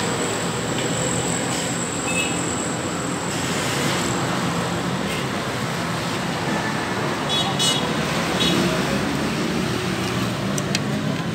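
Steady street traffic noise with indistinct voices in the background. A few short high-pitched beeps sound about two-thirds of the way through.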